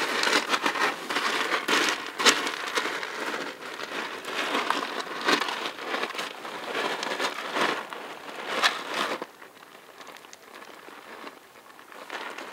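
A kitten scratching and shuffling in pellet cat litter, the pellets crunching and rattling in quick clusters of clicks. The scratching stops about nine seconds in, leaving only faint, scattered rustling.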